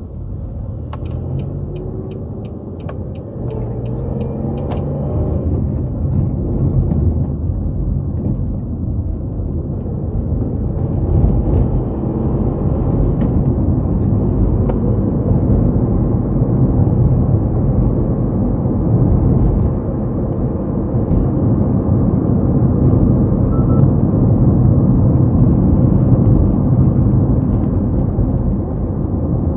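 Car driving along a road: a steady low engine and tyre rumble that builds as the car picks up speed, its engine note rising over the first few seconds. Early on there is a quick run of about ten light, evenly spaced ticks.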